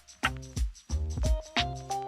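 Background music with a steady beat: low bass thumps about twice a second, with held synth notes above.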